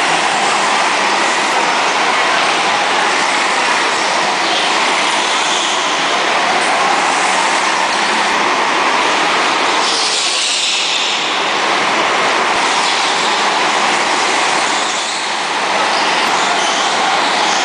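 Go-karts running laps on an indoor track, making a loud, steady noise of kart motors and tyres on the track surface, swelling briefly about ten seconds in.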